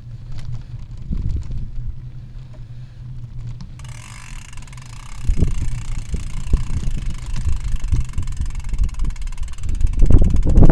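Wind noise on the microphone and the jolts of a vehicle rolling over a rough dirt road, with a low steady hum underneath. A hiss joins about four seconds in, and the bumps and wind grow louder, loudest near the end.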